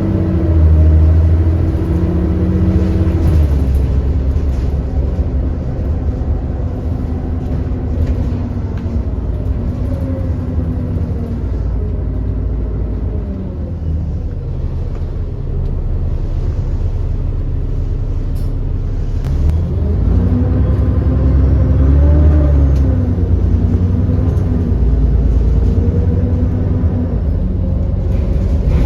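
ADL Enviro400 double-decker bus engine heard from on board, with a heavy low rumble. Its pitch drops and rises as the bus eases off and slows, then pulls away again about two-thirds of the way through.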